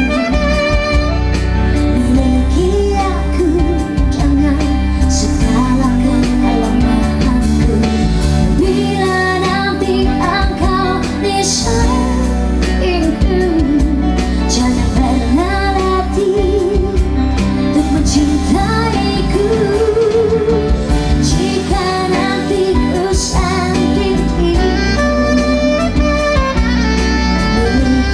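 Live band music: a woman and a man singing a duet over electric keyboard and bass, with a saxophone playing at times.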